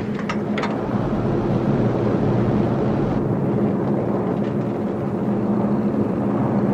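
Steady drone of a B-17 Flying Fortress's four radial piston engines in flight, heard from inside the cockpit.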